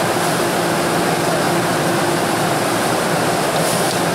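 Steady hum of a stationary Puyuma (TEMU2000) electric train's onboard equipment running, a low even drone under a wash of station noise.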